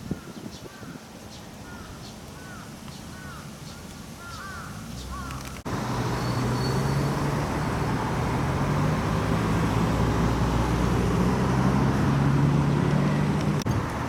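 A crow cawing repeatedly, a short series of calls over a quiet background. About six seconds in, the sound cuts abruptly to louder, steady road-traffic noise with a low engine hum.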